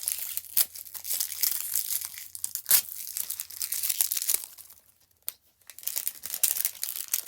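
Plastic wrapping on a toy package being torn and crinkled by hand, a dense crackling that goes on in spurts with a brief pause about five seconds in.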